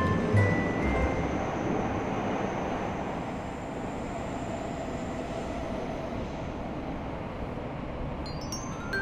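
Steady rushing noise of a cartoon train sound effect running, with chime-like music notes fading out in the first second and starting again near the end.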